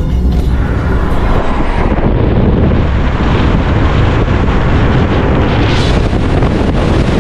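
Heavy wind noise buffeting the camera microphone on a moving car, a steady rush of wind and road noise. Background music fades out in the first two seconds.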